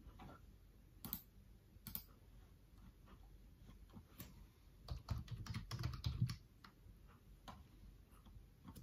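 Faint computer keyboard typing: a few single key presses, then a quick burst of keystrokes about five seconds in as a web address is typed.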